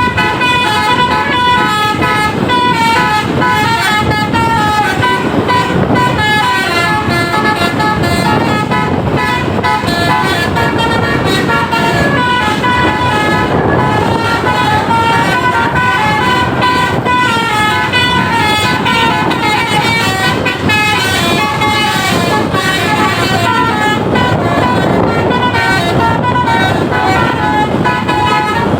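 An Indonesian bus's 'telolet basuri' musical air horn playing a tune nonstop, a quick run of stepped notes sounded several at a time.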